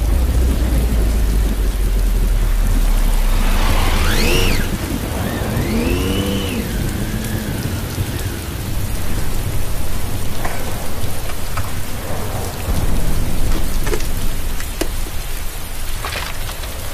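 Heavy rain falling, with a deep rumble of thunder through the first four seconds or so. From about four seconds in, a high, wavering sound glides up and down in pitch for a few seconds, and a few sharp ticks sound later on.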